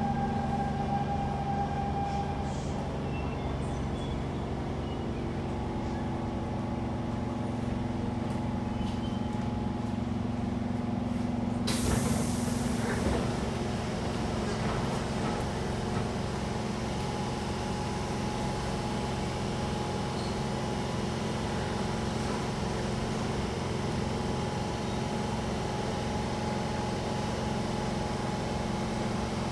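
Siemens C651 MRT train coming to a stop at a platform, heard inside the car: a steady electrical hum with several level tones. About twelve seconds in comes a sudden loud hiss of released air as the train halts and its doors open. The hum carries on while it stands with the doors open.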